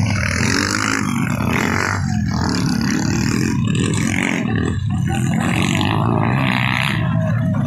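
Motocross dirt bike engines running, under a loud, steady low rumble.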